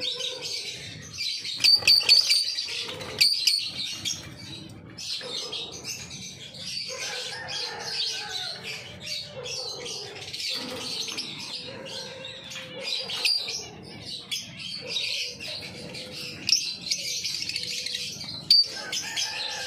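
Lovebirds chirping and chattering: a dense, continuous run of short shrill chirps, loudest about two seconds in.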